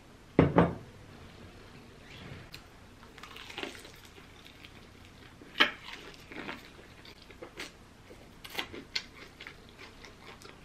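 Close-miked biting and chewing of crispy fried chicken glazed with honey and hot sauce: wet, sticky crackles and crunches at irregular intervals. A pair of loud knocks about half a second in.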